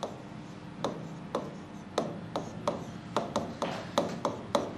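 Writing on a board: short scratching strokes and taps of the writing tip, sparse at first, then coming quickly, several a second, in the second half.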